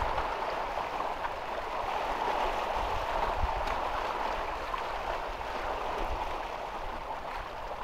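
Small waves washing and gurgling against shoreline rocks, a steady rush of water, with wind buffeting the microphone in low gusts.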